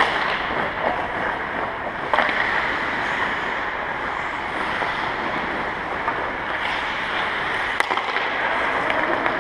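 Ice hockey practice: a steady hiss of skate blades scraping the ice, broken by a few sharp cracks of sticks striking pucks, about two seconds in and again near the end, ringing in the large arena.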